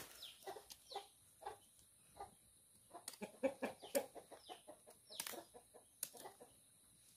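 Chickens clucking in short calls, mixed with sharp knocks of a machete cutting hands of bananas off the stalk.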